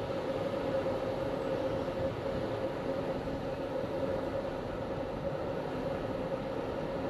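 Wind and road noise picked up while riding a road bike: a steady rushing rumble with a constant hum running through it.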